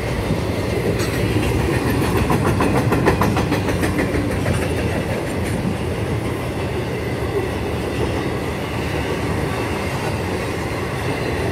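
Intermodal freight train's container cars rolling past, a steady rumble with wheels clacking over the rail joints, the clacking thickest in the first few seconds.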